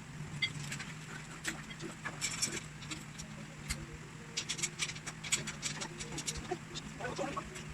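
Scattered light clicks and knocks of shelf rack parts being handled and fitted together, over a steady low hum.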